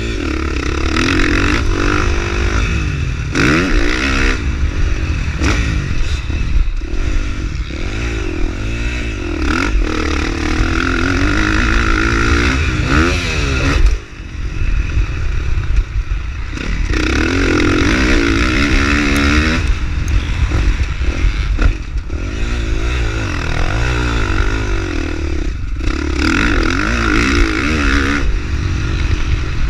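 A 450cc four-stroke motocross bike's engine revs up and down repeatedly under race throttle over a heavy low rumble. The engine note briefly drops off about halfway through, then picks back up.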